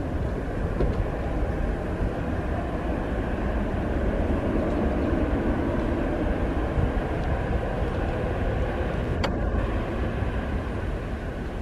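Jet engines of a Lion Air Boeing 737 running as it rolls along the runway, heard from a distance as a steady rumble. There is a single sharp click about nine seconds in.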